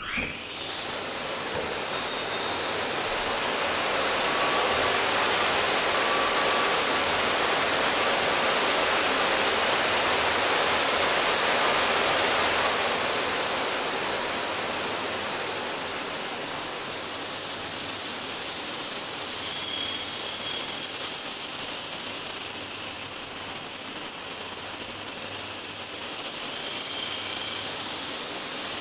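A sudden loud rush of air with high whistling tones, inside the sealed waiting room of an underground tunnel station, as a passing limited express train enters the tunnel and drives air through the station. The noise sets in abruptly, holds steady, and then swells with a stronger, shriller whistle in the second half.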